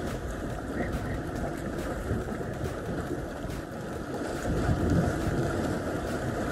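Wind buffeting the microphone: a steady, gusting low rush.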